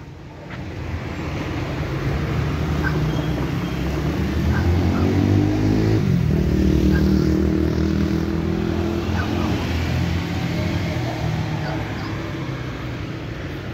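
A motor vehicle's engine drawing near and passing in street traffic. Its pitch rises as it speeds up around the middle, then the sound slowly fades.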